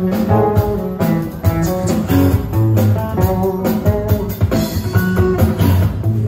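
Music with guitar and a drum beat.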